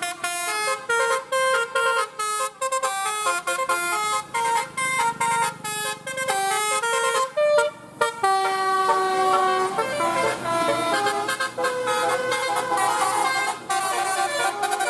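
Telolet basuri multi-tone bus horn playing a melody. It starts as a run of short, separated notes stepping up and down, and from about eight seconds in moves to longer held notes that overlap.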